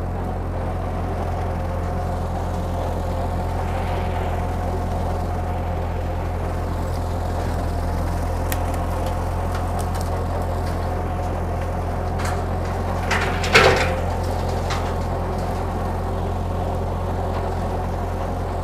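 Ford 8N tractor's four-cylinder flathead engine running steadily at raised throttle while driving a Woods Dixie Cutter M5 rotary brush hog through tall weeds. A few light ticks come in the middle, and a short, loud clatter about thirteen seconds in.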